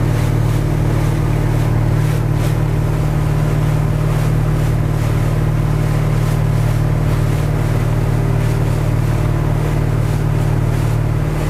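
Lyman wooden motorboat's engine running steadily under way, a constant low drone with the rush of water along the hull.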